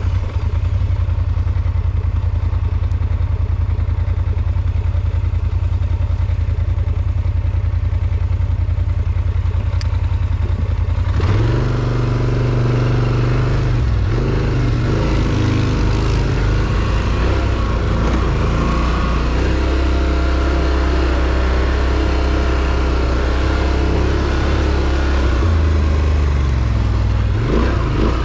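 Polaris Sportsman ATV engine idling steadily, then revving up and pulling away about eleven seconds in, its pitch rising and falling with the throttle.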